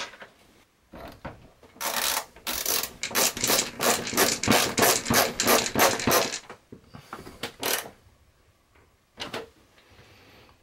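Hand screwdriver driving a screw through a shower-head hanger into an RV shower wall: a run of quick rasping creaks, roughly three to four with each second of twisting, then a couple of single scrapes as it is finished off.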